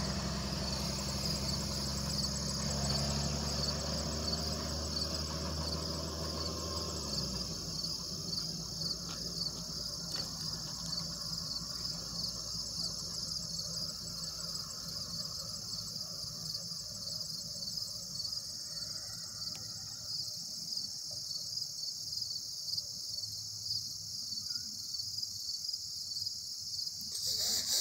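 Field insects chirping steadily in a high, rapidly pulsing trill. Under it a low engine hum runs for the first several seconds and stops about seven seconds in.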